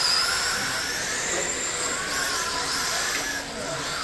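Several radio-controlled dirt-oval race cars' motors whining as they lap, the pitch rising and falling as the cars speed up and slow into the turns.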